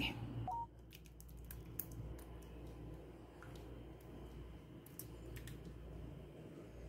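Faint soft squelches and a few light clicks of thick, syrupy plum chutney being spooned into a glass bowl, over a low steady room hum.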